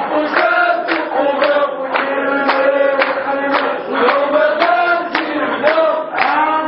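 A group of men chanting in unison, keeping time with rhythmic hand claps about twice a second.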